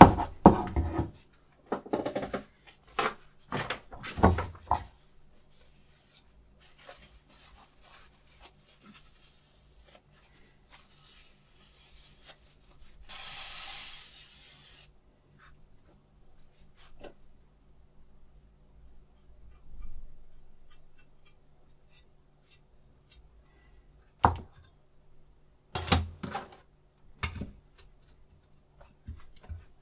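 Handling of a Hapstone T1 knife-sharpening jig and a chef's knife: clatter and clicks of metal parts as the blade is set in the clamp. A cloth rubs along the blade for about two seconds midway, and there are sharp knocks near the end.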